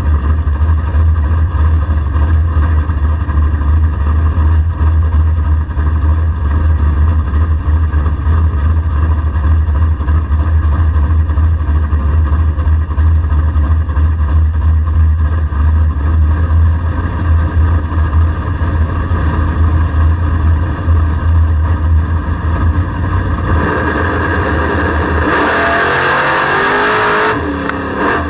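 LSX V8 engine of a drag-race Camaro running at low revs with a steady deep drone, heard inside the stripped cabin as the car rolls slowly. Near the end the engine note changes and climbs as it picks up revs.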